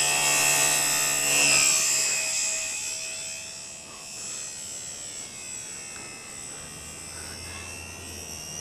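Remote control model plane's motor and propeller whining at full power as it is hand-launched, loud at first, then fading over about three seconds as the plane flies away and climbs, leaving a faint steady whine.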